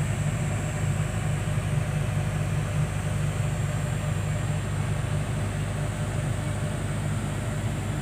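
Excavator's diesel engine running steadily, heard from inside the cab as an even low hum.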